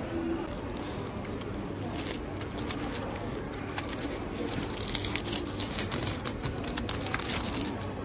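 Aluminium foil around a burrito crinkling and crackling as fingers peel it open, a dense run of crackles that stops just before the end.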